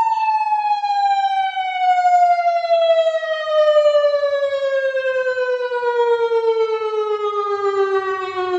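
Electronic police-escort siren sounding one long, loud tone that falls slowly and evenly in pitch, winding down like a mechanical siren coasting to a stop.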